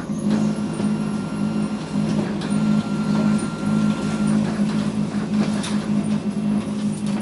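Kyocera TASKalfa photocopier running through a copy cycle: a steady low drone with a rhythmic pulsing, a few light clicks, and a thin whine that comes in for about two seconds in the middle.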